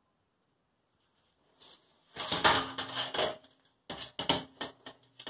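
Stainless steel parts of a Grainfather G30 brewing system knocking and clattering as they are handled, starting about two seconds in, with a faint metallic ring; a second run of sharper knocks comes near the end.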